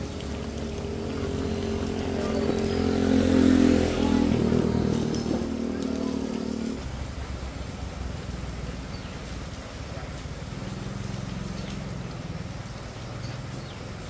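A vehicle engine running as it passes, growing louder to a peak about three and a half seconds in, then fading and dropping away about seven seconds in, leaving a fainter low hum.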